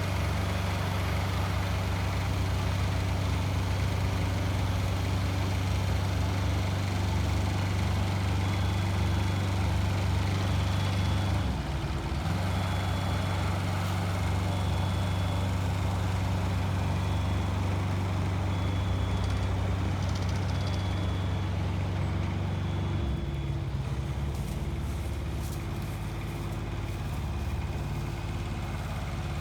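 Engine of heavy tree-service machinery running steadily, with a deep hum that eases off about 23 seconds in. Short high beeps repeat about every second and a half through the middle stretch.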